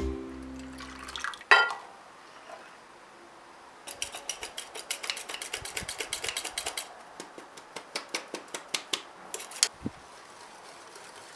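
Background music stops about a second in, then a sharp clink of kitchenware. A metal utensil taps rapidly and evenly against a bowl for a few seconds, about eight taps a second, then slower and more irregular clinks follow.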